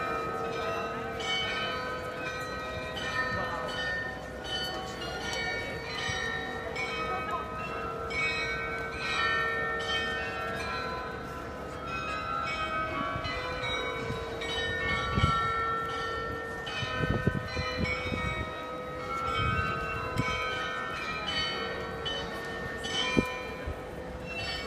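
The Munich Rathaus-Glockenspiel's carillon playing a tune, its bells struck one after another in a steady melody, each ringing on under the next.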